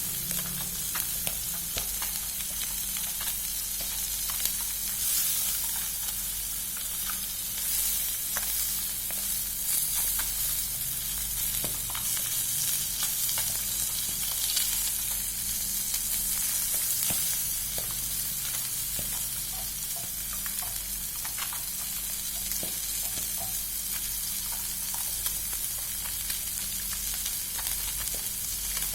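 Food frying in hot oil: a steady sizzle with many small crackles and pops.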